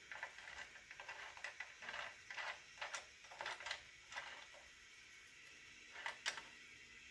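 Faint clicking and scraping of mounting hardware being handled and fitted under a drill press base: a busy run of small clicks, a brief lull, then a few more clicks about six seconds in.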